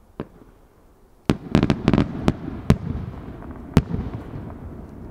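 Fireworks going off: a faint pop, then a little over a second in a quick run of about eight sharp bangs over two and a half seconds, with a rumbling echo rolling on after them.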